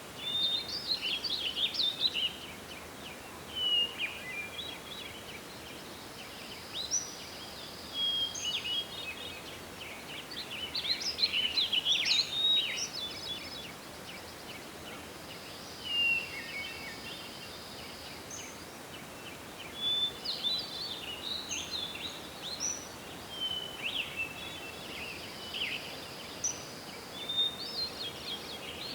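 Forest birds singing: bursts of chirpy, trilling song every few seconds, the fullest about halfway through, over a steady background hiss. A thin, held high note comes and goes three times between the phrases.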